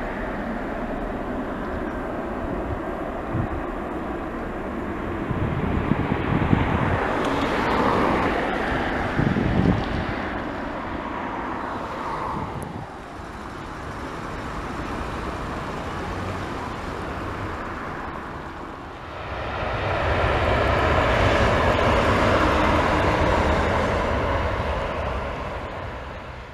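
Airbus A319-111's twin CFM56-5B5/3 turbofan engines at takeoff power: steady jet engine noise that grows louder as the aircraft rolls and passes, loudest about eight to ten seconds in. It eases, swells again a few seconds before the end, and cuts off.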